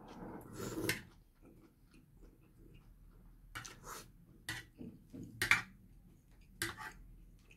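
Noodles slurped in the first second, then a metal spoon and fork clinking and scraping on a plate in a handful of separate sharp clicks.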